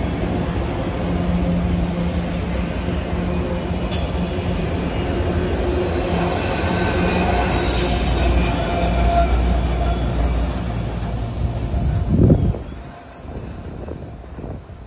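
Freight train of autorack cars rolling past close by: a steady low wheel rumble with thin, high-pitched wheel squeal over it. A sharp peak comes about twelve seconds in as the end of the train passes, then the sound drops away.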